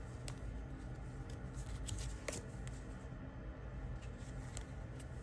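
Tarot cards being handled and laid down: a few faint scattered clicks and light slides over a low steady hum.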